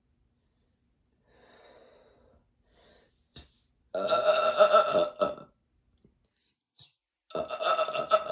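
A woman belching twice, each a long, loud burp of over a second, the second starting near the end. The belches bring up the gas from a belly full of carbonated water.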